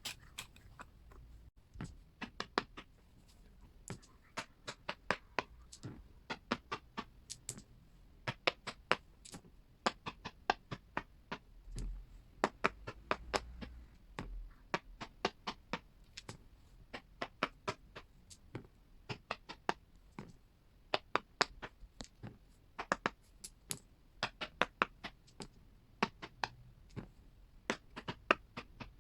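Silicone pop-it fidget toy's bubbles being pressed one after another: a long run of sharp pops, often several in quick succession, with short pauses between runs.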